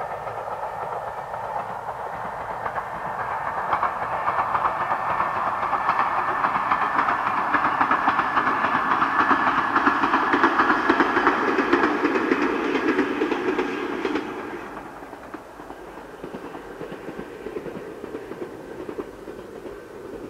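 Ichibata Electric Railway electric train running along the track. It grows louder over the first few seconds, holds at its loudest through the middle, then drops away sharply about fourteen seconds in, leaving a fainter rumble.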